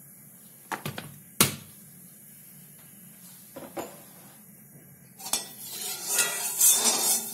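A few sharp metal clinks, the loudest about a second and a half in, then from about five seconds in a metal spatula scraping around the inside of a steel kadhai, spreading oil over the pan to grease it so the food won't stick.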